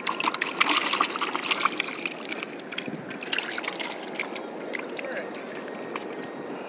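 Water splashing and trickling in a bucket as wet akule are lifted out and dropped back in, with many small clicks and knocks of handling, busiest in the first two seconds.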